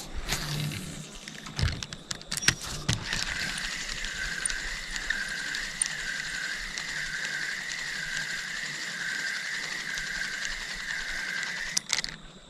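Spinning reel being cranked steadily to wind in a hooked fish, a whirring that wavers with each turn of the handle, with a few clicks at the start; the winding stops abruptly near the end.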